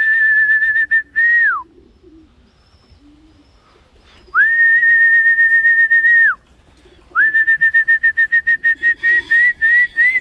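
Pigeon keeper's whistle calling homing pigeons down to land at the loft: a few long, level, high whistles. The last one breaks into a fast run of short notes that rises slightly near the end.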